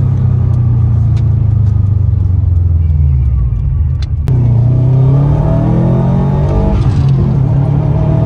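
Subaru WRX STI's turbocharged 2.5-litre flat-four (boxer) engine with an aftermarket exhaust, pulling under acceleration, heard from inside the cabin. The note holds steady, dips briefly with a click about four seconds in, then the revs climb again.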